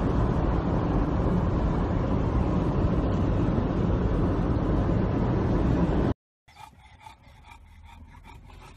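Steady rumble of road and wind noise inside a moving car. It cuts off abruptly about six seconds in, and a much quieter stretch of faint clicks follows.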